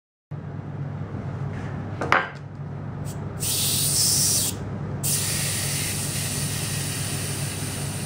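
Air hissing out through the valve of a minimoto tyre as the valve is opened with a tool to deflate it. A sharp click comes about two seconds in; the hiss starts about a second later, breaks off briefly, then resumes and carries on, slowly fading.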